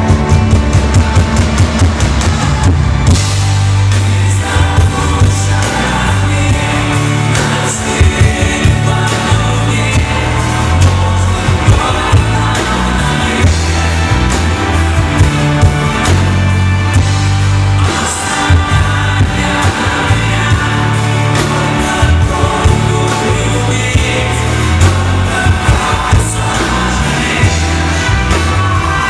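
Live band music: a male singer over acoustic guitar, with a strong bass line moving note to note and a steady drum beat.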